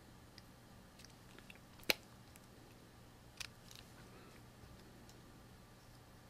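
Faint, scattered key clicks and taps, with a sharp louder click about two seconds in and another about three and a half seconds in: keys being pressed to work out a calculation.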